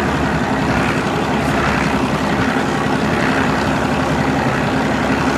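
Fishing boat's motor running steadily under way, a constant low drone with water and wind noise over it.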